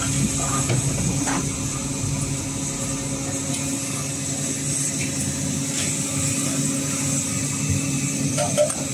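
Steady machine hum with a high hiss, and a few light clinks.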